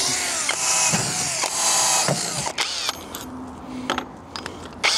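PIT cordless drill-driver boring into the metal of a car roof rack, its motor whine rising and falling under load. The drilling stops about halfway through, leaving a few sharp clicks.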